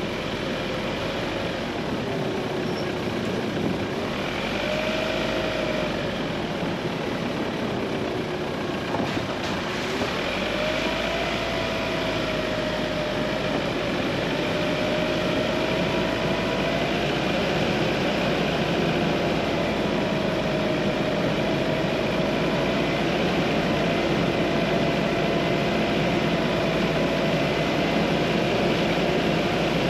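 A 4x4 driving along a narrow lane, heard from a camera on its front grille: steady road and wind noise with a droning engine note that wanders up and down in pitch.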